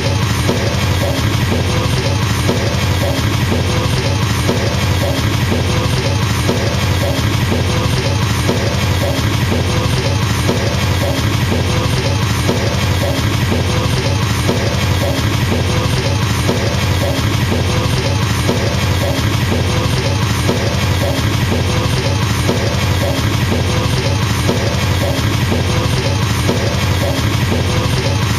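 Drum kit double bass drum played as a continuous, very fast roll of even kick strokes that blur into a steady machine-gun drone, at an unchanging loudness throughout.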